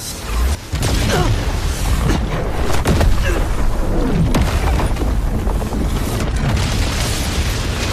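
Battle sound effects for an animated fight: a deep, continuous booming rumble with several falling whooshes and sharp impacts, under background music.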